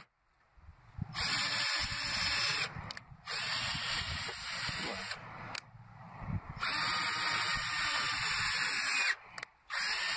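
Cordless drill driving a screw into a wooden block through a long homemade screwdriver bit. It runs in about four separate bursts of one to three seconds, the motor whine rising in pitch as each one starts.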